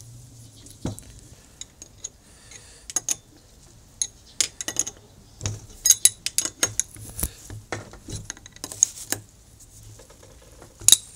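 Hand tool and small metal parts clicking and clinking against the metal gear head of an angle grinder being worked on by hand: irregular light metallic taps and clinks, sparse at first and coming thicker from about four seconds in.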